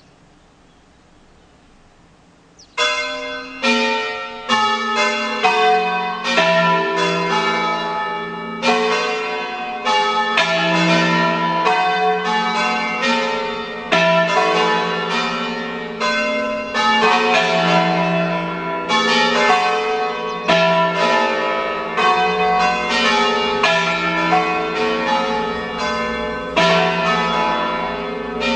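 A peal of five Ambrosian-system church bells, tuned E, F sharp, G sharp, A and B, starts ringing about three seconds in. The bells strike one after another in quick, uneven succession, each stroke ringing on under the next.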